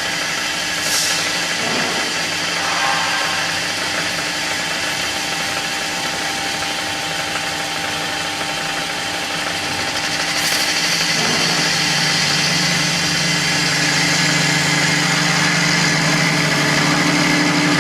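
Taper rod sharpening machine running steadily with a constant mechanical hum and whine. About eleven seconds in it grows a little louder and deeper. Two brief hisses come, about a second in and near ten seconds.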